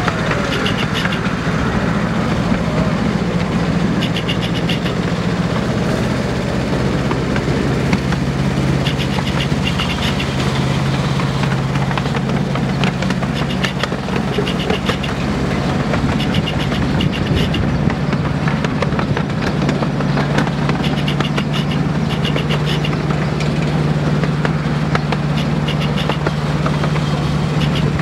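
Engine of a miniature railway locomotive running steadily with a constant low hum as it hauls a ride-on train. Quick groups of clicks from the wheels running over the track come every few seconds.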